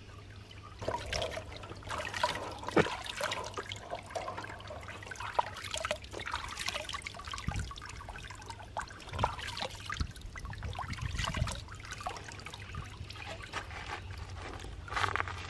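Water dripping and trickling off a wet baby monkey into a shallow inflatable pool, with irregular small splashes as hands rinse it.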